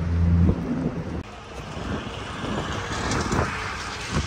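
Wind buffeting the microphone over a low, rumbling motor. A steady low hum shows in the first half second.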